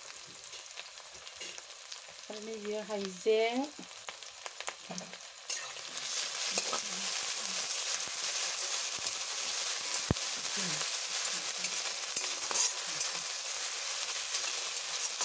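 Sliced onions and chillies frying in hot oil in a metal wok, sizzling, with a spatula stirring them around the pan; the sizzling grows much louder about six seconds in. A person's voice is heard briefly around three seconds in.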